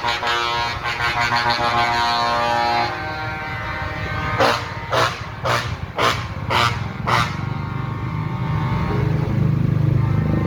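Trucks honking as they pass: a held horn note for about the first three seconds, then about six short horn blasts in quick succession. Heavy engines run underneath, growing louder near the end.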